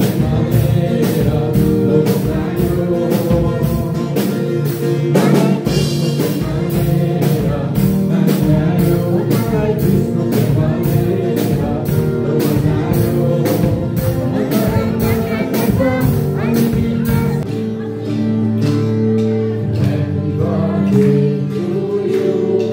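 Christian worship song: singing over instruments with a steady beat, which drops out near the end, leaving sustained held notes.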